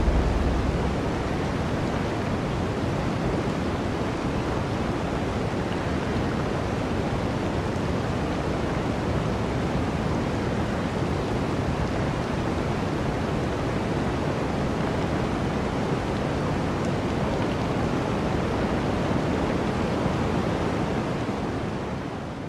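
Steady rushing wind noise, an even hiss with no gusts, fading out near the end.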